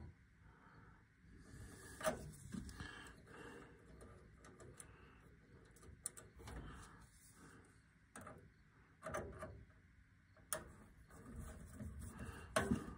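Faint, scattered clicks and rustles of thermostat wires being handled and fastened to a furnace control board's low-voltage terminal strip with a screwdriver.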